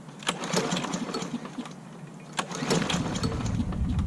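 Kohler engine on a Lawnboy 10606 mower being pull-started: scattered clicks and rattles, then about three seconds in the engine starts cranking on the recoil starter without catching, because its choke is stuck open.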